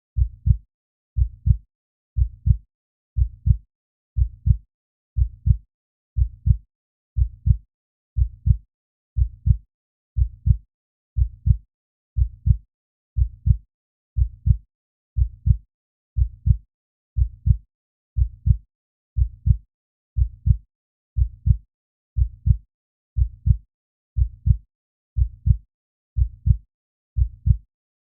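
Heartbeat sound effect: a steady lub-dub of two low thumps close together, repeating about once a second.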